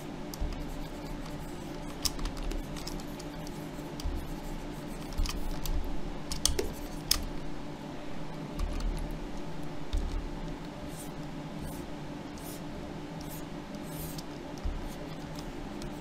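Scattered light clicks of computer input devices at a desk, a dozen or so spread irregularly, over a steady low hum, with a few soft low thumps.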